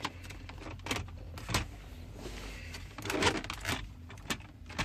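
Scattered clicks and knocks of a car's interior dash trim being worked and pulled down by hand, with a louder cluster of clatter about three seconds in.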